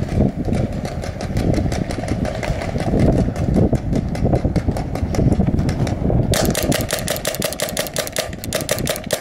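Paintball marker firing in fast strings of shots, about eight a second, getting denser and sharper about six seconds in, over a loud low rumble.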